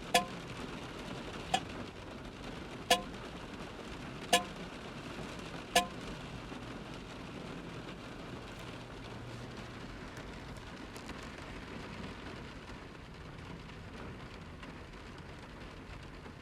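Steady rain falling, with five sharp taps on a soda can about every second and a half, each with a short metallic ring. After about six seconds the taps stop and only the rain goes on.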